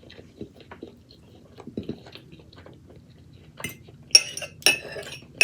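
A metal utensil clinks against a dish about four times in the second half, each clink ringing briefly. Before that there is quiet chewing with small clicks.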